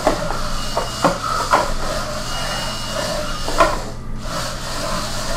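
Multi-legged robot's servos and feet working as it starts tracking: irregular clicks, taps and scraping over a steady low hum, with a faint high steady tone for about a second in the middle.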